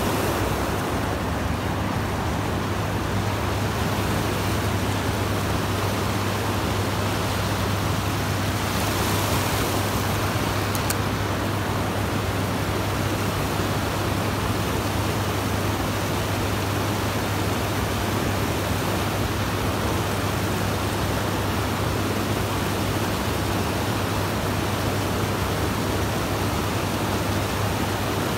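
River water rushing over rapids close by: a steady, unbroken wash.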